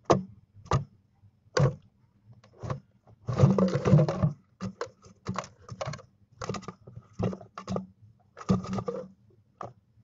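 Barn owlets shuffling and stomping their feet on a dry leaf-and-litter nest floor: a string of short rustling scratches and taps, densest for about a second around the middle.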